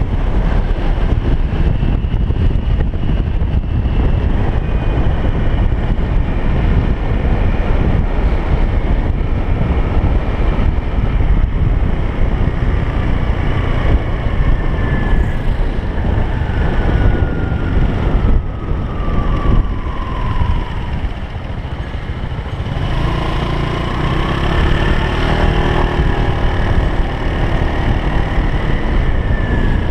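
A motor vehicle running steadily with continuous rumbling noise, and a few faint tones that slide down in pitch partway through.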